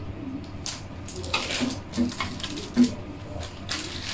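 Parchment baking paper rustling and crinkling, with a string of light clicks and taps against a metal baking tray, as freshly baked brioche is handled and lifted off the paper.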